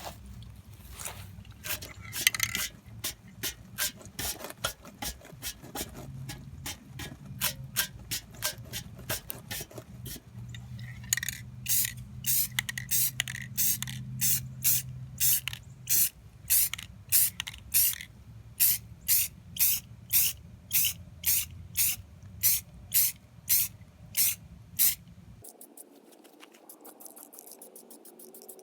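Aerosol spray-paint can sprayed in short hissing bursts, a few irregular ones at first, then a long even run of about two bursts a second. The spraying stops and the low background hum drops out a few seconds before the end.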